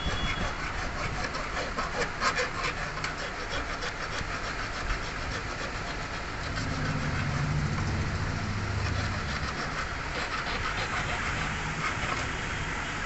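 Hand file rasping in quick, repeated strokes across the edge of a small sand-cast metal buckle, deburring and finishing the casting. A low rumble rises for a few seconds past the middle.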